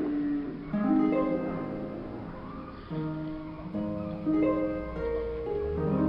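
Background music of plucked-string notes, harp-like, played in slow chords that sound afresh every second or so.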